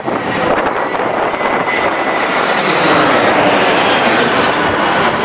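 Airliner passing close on its landing approach, its engine rush swelling to a peak about three to four seconds in, with a faint whine dropping in pitch as it goes by.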